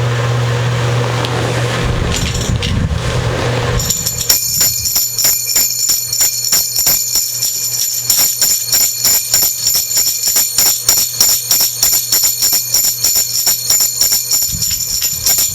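A steady low hum for the first few seconds, then bells jingling in a steady rhythm with a high ringing shimmer, as in a sleigh-bell part of Christmas music.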